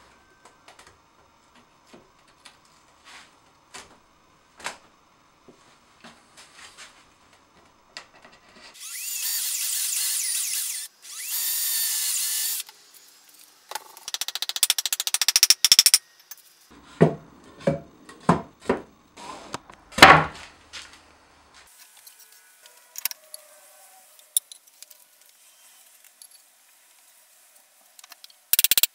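Woodworking at the bench: light taps, then a power tool runs twice for about two seconds each. Rasping follows, then a series of sharp knocks on wood, the loudest about twenty seconds in, and a short burst near the end.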